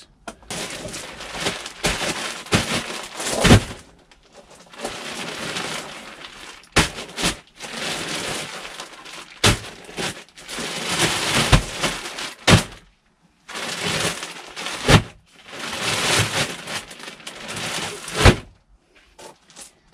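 A plastic grow bag full of compost crinkling as it is shaken and handled, with about ten heavy thuds as it is thrown down and beaten on a gravel floor. The beating loosens the compost, which has been compacted by stacking.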